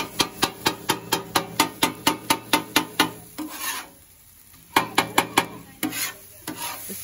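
Metal spatula chopping and scraping shaved steak on a flat-top griddle: quick, even clanks about four a second for three seconds, then a short lull and a few more strokes.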